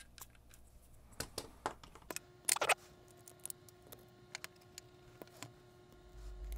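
A few light clicks of small reel parts being handled, then about two and a half seconds in a metal fishing-reel part drops and clatters onto the hard work surface and keeps ringing with a steady tone for several seconds.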